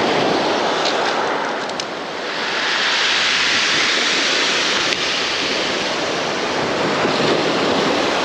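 Small waves breaking and washing up a pebble shore: a loud, steady rush of surf that eases briefly about two seconds in and then swells again.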